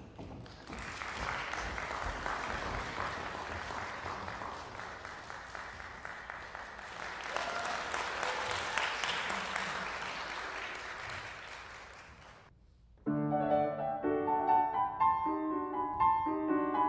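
Audience applauding, the applause fading away about twelve seconds in. A grand piano then begins a classical introduction before the violin comes in.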